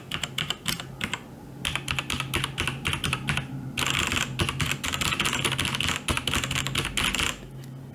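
Typing on a TVS Gold mechanical keyboard with Cherry MX Red linear switches: quick runs of keystrokes in bursts with short pauses, fastest from about four seconds in, without the sharp click of clicky switches.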